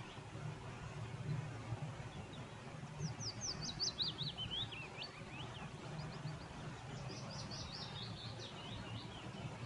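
A small songbird singing two runs of quick, high chirps that step down in pitch, the first about three seconds in and the second about seven seconds in, over faint background noise.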